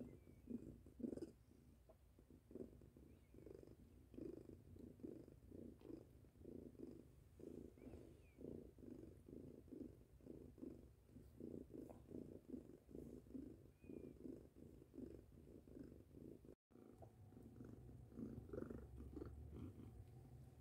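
Mother cat purring softly and steadily while nursing her week-old kittens, in an even rhythmic pulse, with a brief gap in the sound near the end.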